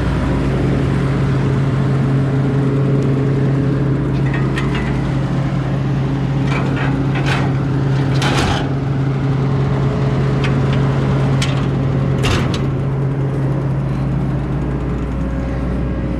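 An engine runs steadily with a constant low drone, and a few short sharp clicks or cracks come over it through the middle.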